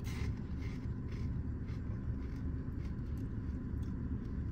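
Steady low hum inside a car cabin, with scattered faint crisp crunches and crinkles from crunchy protein puffs being chewed and the plastic snack bag being handled.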